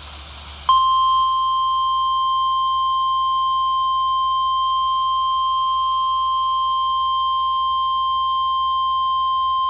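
NOAA Weather Radio warning alarm tone: a single steady 1050 Hz tone lasting about nine seconds, starting just under a second in after brief radio static and cutting off suddenly. It signals the start of an alert broadcast, here a severe thunderstorm watch.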